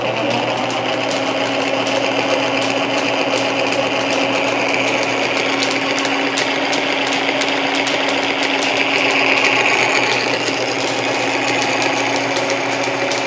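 Canedy-Otto camelback drill press running steadily in its highest belt speed, out of back gear: a steady mechanical hum from the belt drive and spindle, with a light ticking repeated throughout.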